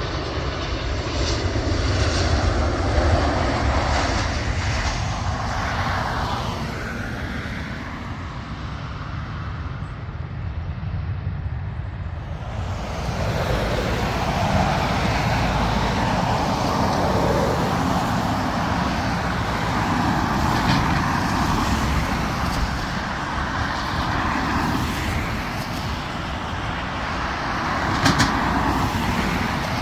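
Jet airliner engines running, a steady noise with a deep rumble that swells and ebbs, with a short sharp knock near the end.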